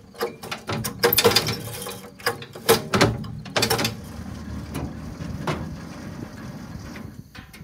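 Recoil starter rope of a small engine yanked repeatedly, each pull a quick whirring rasp, about four pulls in the first four seconds.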